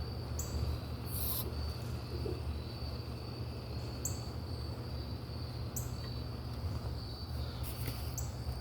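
Crickets chirring steadily under a low, steady hum, with a short, very high chirp every couple of seconds.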